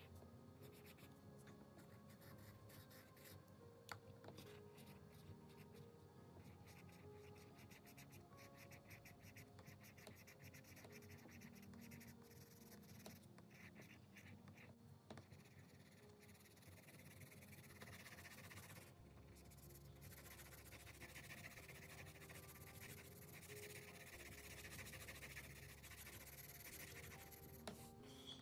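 Pencil scratching faintly on sketchbook paper in rapid, short, repeated shading strokes, with faint background music.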